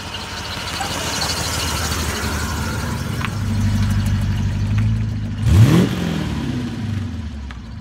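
Morgan Plus 8's race-prepared 3.5-litre Rover V8 running as the car rolls over and past, its note growing louder, then revving sharply about five and a half seconds in and falling away as it pulls off.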